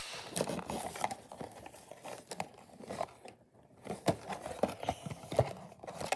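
Clear plastic blister packaging crinkling and clicking as a toy figure is handled and worked out of it, in irregular crackles and snaps with a short lull about halfway.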